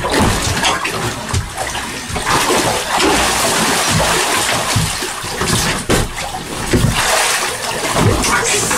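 A speared lake sturgeon thrashing in a spearing hole cut through the ice, churning the water in loud, irregular splashes and sloshes.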